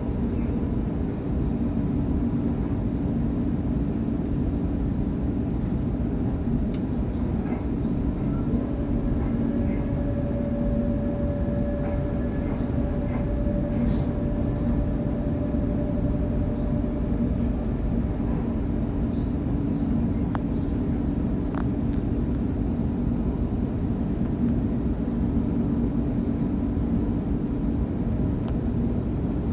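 Electric suburban train running at speed, heard from inside the carriage: a steady rumble with a low hum. A faint higher whine comes in for about ten seconds midway, and a few light clicks sound along the way.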